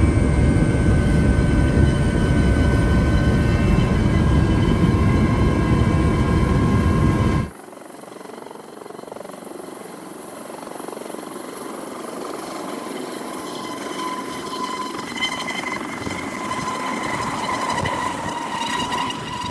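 Aérospatiale AS365 Dauphin twin-turbine helicopter running. First comes a loud, dense rotor and turbine noise heard inside the cockpit. After a sudden cut about seven seconds in, the same helicopter is heard from outside as it lifts off and hovers, a steady whine that grows gradually louder.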